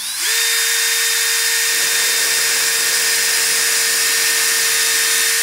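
Power drill with a hole saw running steadily at full speed, cutting a round plug out of a foam air-filter pad: an even whine over a loud hiss that spins up just after the start.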